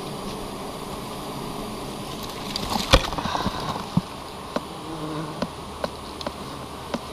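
Swarm of wild giant honeybees buzzing steadily around a comb being harvested. A sharp knock comes about three seconds in, followed by a series of lighter taps as a knife works chunks of comb into a plastic bucket.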